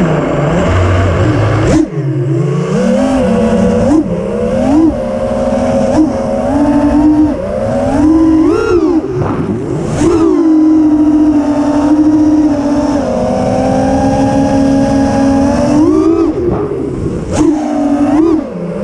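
5-inch FPV quadcopter's T-motor Velox 2207.5 2550kv brushless motors spinning Gemfan Hurricane 5143 props, whining loudly on board with the pitch swooping up and down again and again as the throttle is worked in flight.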